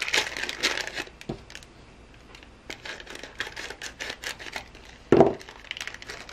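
Hands crinkling and rustling thin plastic packaging in quick, irregular crackles, with one brief louder thud about five seconds in.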